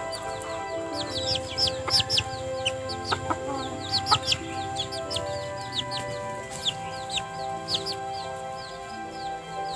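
A chick peeping: a rapid run of short, high, falling peeps, thinning out in the second half, over background music with long held notes.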